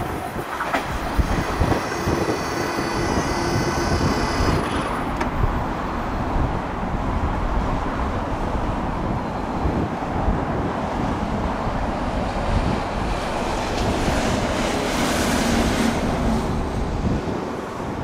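381 series electric train running past on the track and moving away, with a high steady whine for about the first four seconds, then a steady rush of wind on the microphone.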